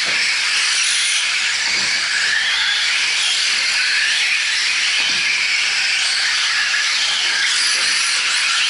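Several radio-controlled 4WD short-course trucks racing together: the electric motors and drivetrains give a steady high hiss and whine that wavers up and down as the trucks speed up and slow through the turns.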